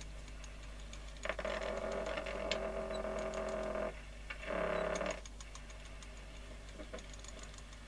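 Walter 101 reel-to-reel tape recorder's mechanism running the tape through, with a steady pitched motor sound in two spells, one of about two and a half seconds and then a shorter one, and light clicks from the deck controls.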